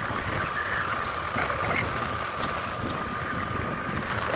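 Wind noise on the microphone of a moving scooter, very loud, over the scooter's engine running steadily, with a steady high whine.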